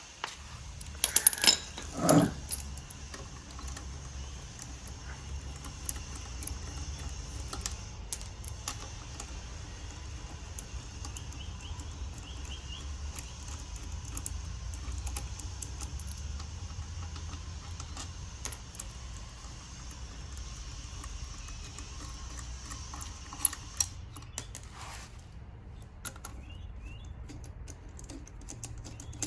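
Metal hand tools and engine parts clinking and clattering while the intake manifold's bolts and sensors are worked loose, with a few loud knocks in the first couple of seconds and lighter scattered clinks after, over a steady low hum.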